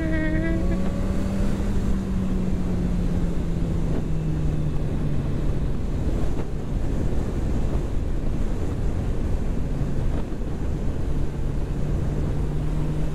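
Suzuki GSX-S1000F's inline-four engine cruising at a steady speed, a low steady hum under heavy wind noise on the microphone. The engine note eases down slightly about four seconds in, fades briefly near ten seconds, then comes back.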